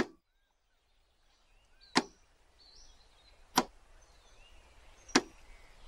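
Four sharp thwacks about a second and a half apart over a faint outdoor ambience with a few short chirps.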